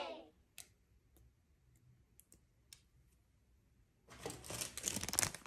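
Fingers poking and pressing a soft pink slime, giving sticky popping clicks: a few faint single clicks at first, then a dense crackly run from about four seconds in.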